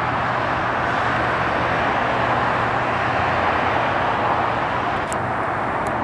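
Steady road traffic noise: an even, unbroken rush of passing cars with a faint low hum underneath.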